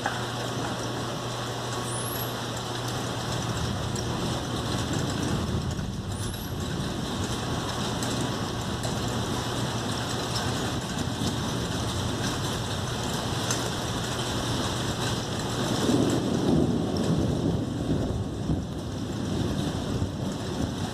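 Heavy rain falling steadily during a thunderstorm, with a low rumble swelling for a few seconds near the end.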